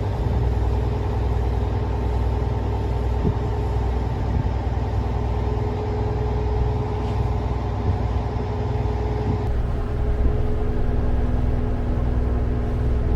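Sightseeing boat's engine running steadily, a low, even drone with a faint hum over it.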